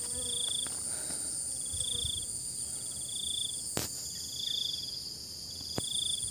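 Insect chorus: a steady high-pitched drone with a short buzzing chirp repeating about every second and a half. Two sharp clicks, a little past halfway and near the end.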